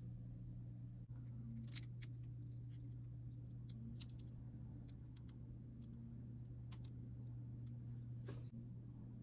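Lipstick tubes clicking and tapping against each other and the tabletop as they are handled and lined up: a handful of sharp, separate clicks over a steady low hum.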